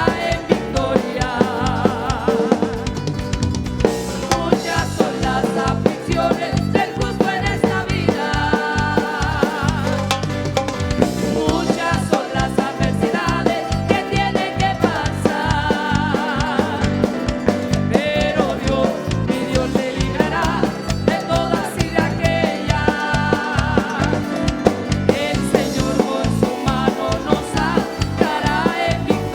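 Live gospel band music heard through an in-ear monitor mix: drum kit and bass to the fore, with a steady driving beat and a wavering melody line over it.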